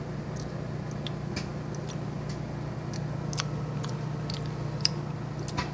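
Scattered light clicks and taps of utensils and food being handled, over a steady low hum.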